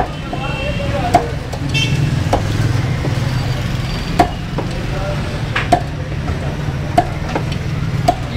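Meat cleaver chopping chicken on a wooden block: sharp single chops, about seven in all, roughly every second and a half, over a steady low hum.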